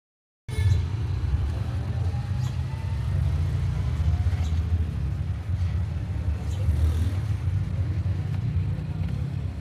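Motor vehicle engine running steadily with a low rumble, starting after a half-second gap of silence.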